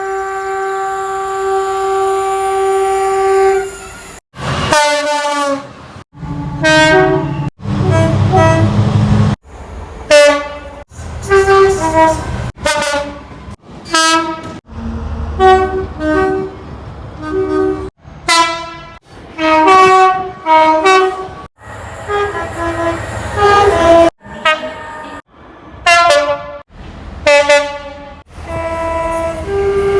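A rapid run of short, abruptly cut clips of British diesel and electro-diesel locomotives (Classes 66, 70 and 73) sounding their two-tone horns: some long steady blasts, some quick alternating high-low tones. A couple of the horns drop in pitch as the locomotive passes, and a low train rumble lies under a few of the clips.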